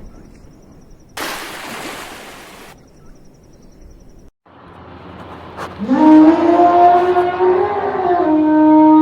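A loud burst of hiss lasting about a second and a half, then, after a brief cut, a long animal call starting about six seconds in: it rises, holds a steady pitch, and slides down at the end.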